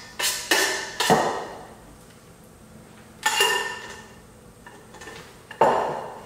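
A metal spoon knocking against a stainless steel pot of cooked penne and pesto as the pasta is tapped out: five sharp metallic clanks with ringing, three in quick succession in the first second, another about three seconds in and a last one near the end.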